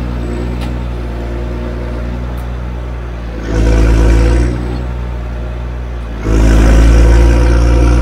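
Forestry machine's diesel engine running steadily, revving up twice: briefly about three and a half seconds in, and again from about six seconds in to the end.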